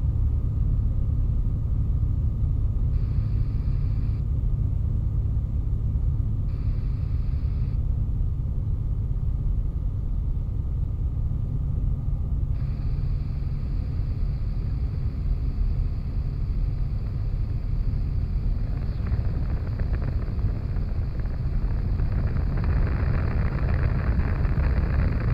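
Steady low drone of an ultralight aircraft's engine and propeller in flight, heard from inside the open cockpit. A higher hiss cuts in briefly twice, then stays on from about halfway.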